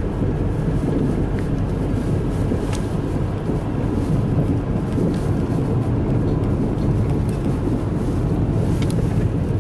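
Steady low road and engine rumble inside the cabin of a moving car, with a couple of faint ticks.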